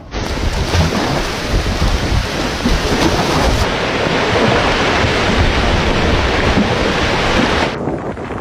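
Hurricane wind and heavy rain blasting against the microphone, a loud dense rush with deep rumbling gusts. It cuts in abruptly and drops off shortly before the end.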